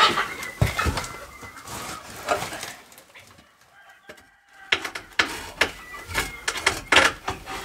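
Chickens clucking and calling, with one longer drawn-out call about three seconds in, among scattered sharp knocks and clatter.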